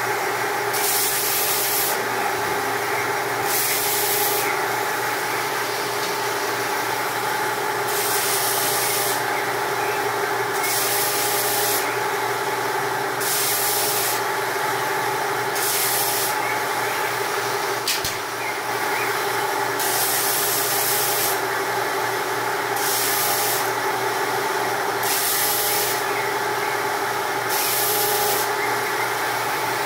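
Small bench power saw running steadily, with a hiss of cutting each time a thin wood strip is fed through the blade, repeated at irregular intervals about every one to three seconds.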